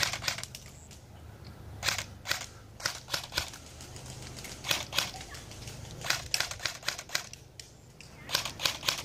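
Airsoft rifles firing single shots: sharp cracks in irregular strings of two to four, with short pauses between the strings.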